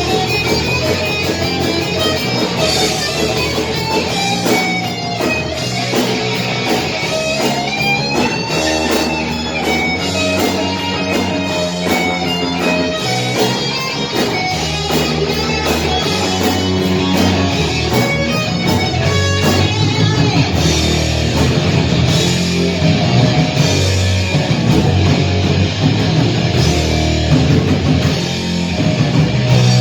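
Live rock band playing with distorted electric guitar, bass and drums, and no vocals. A guitar line with bending, gliding notes is prominent early on, and the band gets heavier with a thicker low end about two-thirds of the way in.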